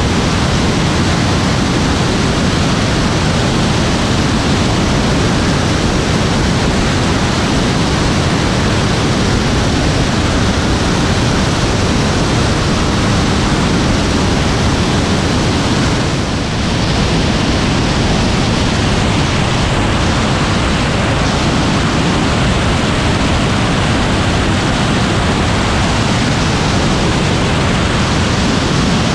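Loud, steady rush of airflow over a camera mounted under the wing of an Aeroprakt A22 light aircraft in flight, with the engine and propeller lost in it. The rush dips briefly about halfway through.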